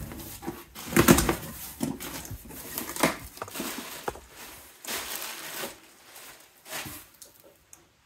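A cardboard shipping box being opened: packing tape slit with a utility knife, the flaps pulled back, and crumpled plastic-bag packing rustling and crinkling as it is lifted out. The loudest rustles come about a second in and at about three seconds, and the handling dies down near the end.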